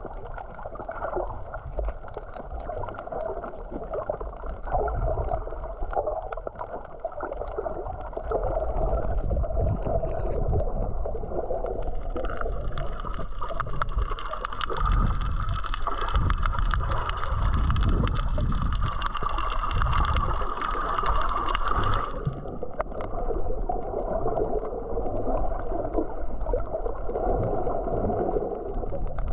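Muffled water sloshing and gurgling picked up by an action camera underwater. From about twelve seconds in, a steadier, brighter hiss joins for about ten seconds, then cuts off abruptly.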